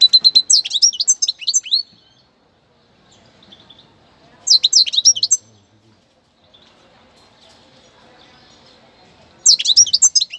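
First-year European goldfinch singing: three bursts of fast, high twittering song, a phrase of about two seconds at the start, a short one just before halfway, and another starting near the end.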